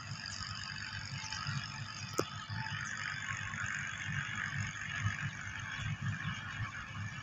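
Open-air field ambience dominated by wind buffeting the microphone in uneven low gusts, over a steady hiss, with a single sharp click about two seconds in.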